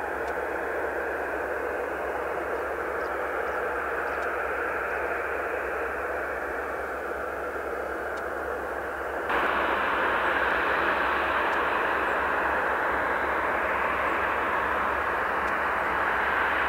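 Jet engines of a Boeing 737-800 running steadily as the airliner rolls on the ground after landing: a continuous whooshing rumble. About nine seconds in it abruptly becomes louder and brighter.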